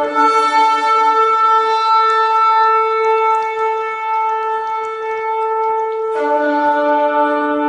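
Shofar (ram's horn) sounding long, steady blasts at a held pitch. A lower note joins in right at the start, fades after about two seconds, and returns about six seconds in.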